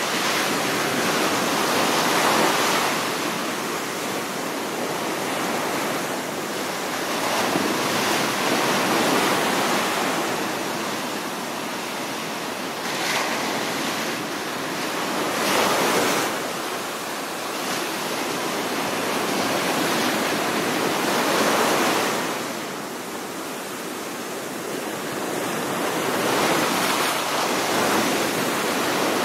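Ocean waves breaking and washing on a shore, a continuous surf hiss that swells and falls every few seconds, with brief splashes.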